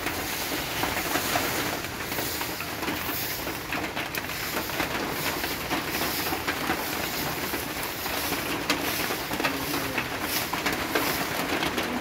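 Light rain falling on the sea and small waves lapping at the shore: a steady hiss of water with a fine, dense patter.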